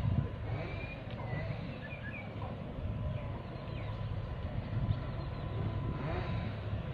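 Outdoor harbourside ambience: a steady low rumble with a few short bird chirps in the first few seconds.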